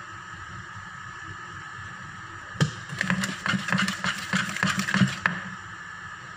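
Wire whisk beating cake batter in a bowl: a fast, uneven clatter of the wires tapping the bowl. It starts about two and a half seconds in and stops about five seconds in, over a steady background hiss.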